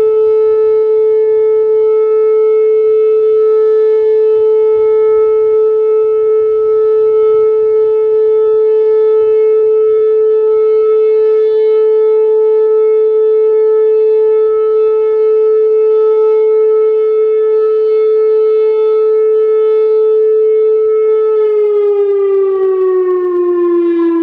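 Whelen 2805 electronic outdoor warning siren sounding one loud, steady tone during its monthly test; near the end its pitch starts to fall as it winds down.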